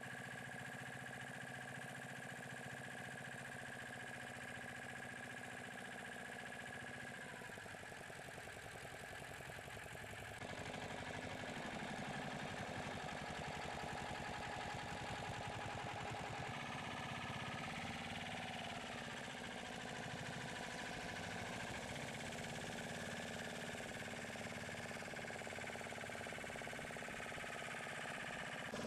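Motor boat's engine running steadily while the boat is under way, its pitch bending briefly a couple of times, with an abrupt change in the sound about ten seconds in.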